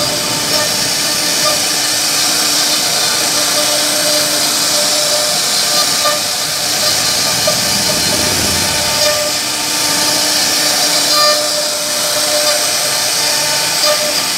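CNC router spindle carving a relief pattern into a wooden panel: a steady whine with a hiss of the bit cutting through the wood, briefly deeper around the middle.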